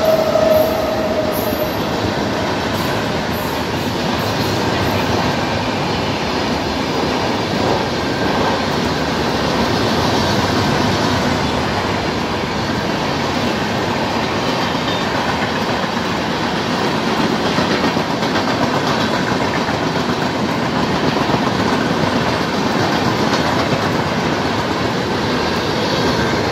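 Satyagraha Express train arriving and running past along the platform, a steady, loud train noise throughout. A high steady tone is also heard, fading out in the first two seconds.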